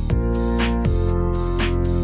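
Background music: held chords with a beat of repeated drum hits.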